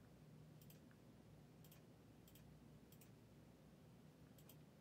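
A few faint, separate computer clicks, five or six spread unevenly through the span, against near silence.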